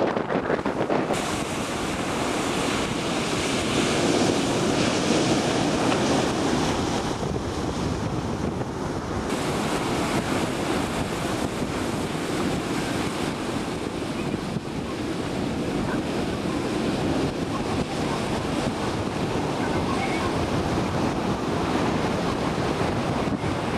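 Breaking ocean surf washing steadily, with wind blowing across the microphone.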